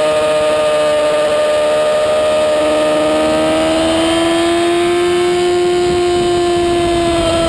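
Racing superbike's engine heard from its own onboard camera, running at high revs under load, with its pitch rising slowly through the middle as the bike accelerates out of a corner, over wind rush.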